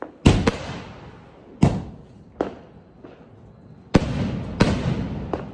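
Sony Fireworks '21st Century' 24-shot aerial cake firing: a string of about seven sharp bangs from shells launching and bursting overhead. Four loud bursts, each trailing off in a long echo, are mixed with smaller pops in between.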